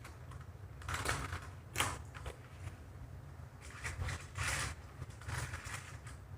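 A handful of short rustles and clicks of hard plastic being handled: a model train boxcar being turned over and fitted onto plastic toy track.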